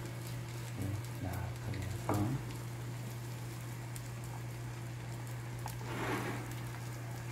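Beaten egg sizzling gently as it sets in a rectangular egg-roll pan over a gas flame, over a steady low hum; the sizzle swells briefly about six seconds in.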